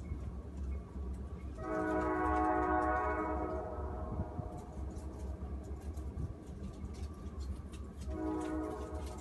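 Distant train horn sounding twice: a long blast of about two seconds, then another starting near the end. A steady low wind rumble runs underneath.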